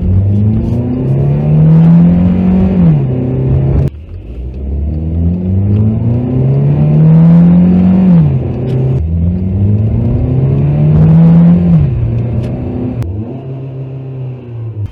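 2015 VW Jetta S non-turbo 2.0-litre four-cylinder engine, fitted with a K&N intake air filter, being revved three times. Each rev climbs for about three seconds and then drops quickly back down.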